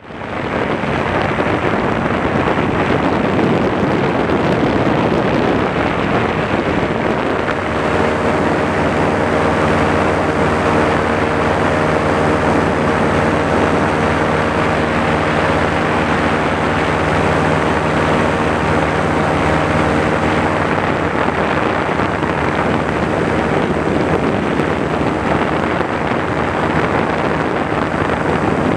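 Motor paraglider's engine running steadily in flight, under heavy wind rush on the microphone. The engine's hum stands out more clearly from about eight seconds in to about twenty.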